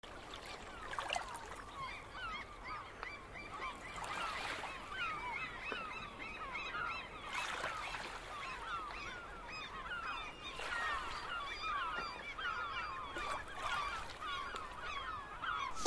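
A large flock of birds calling all together, a dense chatter of short, quickly rising and falling calls, with a soft hiss swelling up every three seconds or so.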